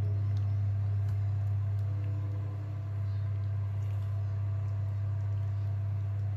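A steady low hum with a few faint, steady higher tones above it, like an electrical appliance or fan motor running.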